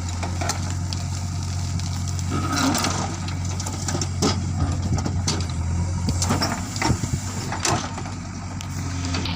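JCB backhoe loader's diesel engine running steadily, with scattered knocks and clatter, heaviest in the middle few seconds, from the gravel-loading work.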